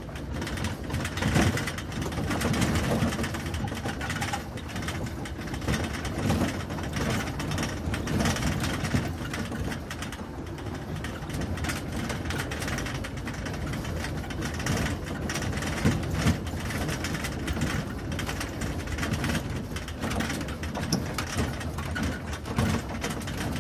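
An ATV driving off-road, heard from its cargo bed: a steady engine rumble under constant irregular rattling and clattering from the bed over the bumps, with a few harder jolts.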